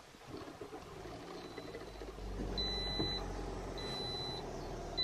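A push-button-start car's engine starts about two seconds in and settles into a low idle. Shortly after, the car's in-cabin warning chime beeps three times, high and even, about once a second.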